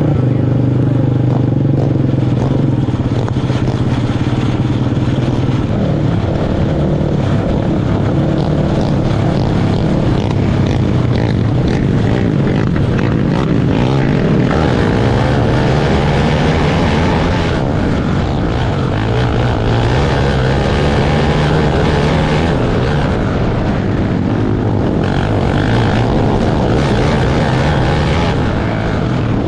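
Open 500 outlaw kart engines racing, the engine note rising and falling again and again as the throttle comes off and back on.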